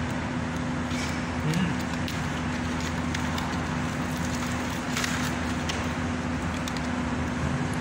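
Steady mechanical background hum with a constant low drone, with a few faint light clicks as food and containers are handled at the table.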